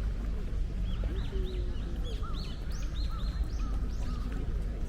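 Small birds chirping, a quick series of short, arched notes repeated throughout, over a steady low background rumble.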